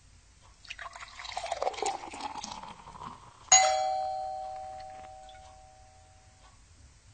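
About three seconds of irregular rustling noise, then a doorbell chimes once about halfway through: a single struck two-tone ding that dies away slowly over about three seconds.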